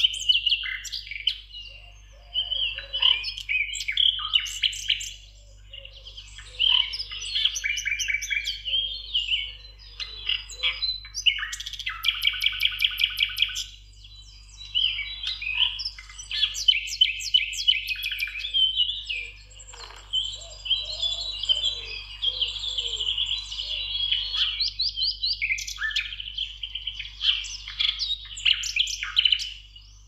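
Songbirds singing in a dense chorus of quick chirps, whistles and trills, with a fast trill of rapidly repeated notes standing out a little before halfway through.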